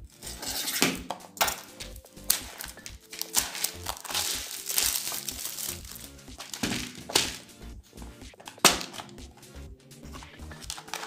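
Plastic shrink-wrap crinkling and rustling as it is cut with scissors and pulled off a plastic box of crimp terminals, in irregular bursts with a sharp click toward the end. Background music plays throughout.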